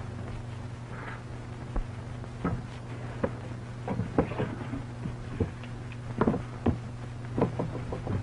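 Steady low hum of an old 1930s optical film soundtrack, with a dozen or so irregular short knocks and clicks from about two seconds in.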